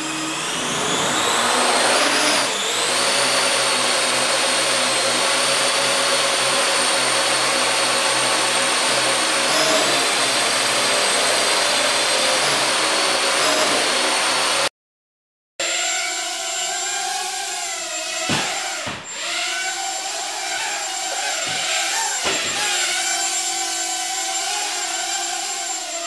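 Parrot AR.Drone 2.0 quadcopter's four electric motors and propellers spinning up with a rising whine, then a steady high buzzing whine while it hovers. After a brief silent cut about halfway through, a quadcopter's motor whine returns at a lower pitch, dipping briefly several times as the motors change speed.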